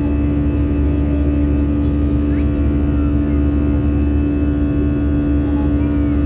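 Aeroplane engines running with a steady drone during take-off, a low rumble under a constant hum.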